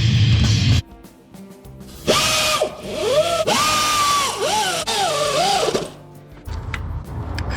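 A handheld power drill run in several short trigger pulls, its pitch rising, holding and falling each time, after the tail of loud background music in the first second.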